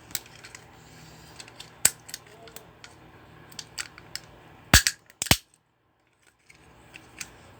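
Hard plastic of a toy remote-control car being forced and broken apart: scattered sharp clicks and cracks, with two loud snaps about half a second apart a little under five seconds in.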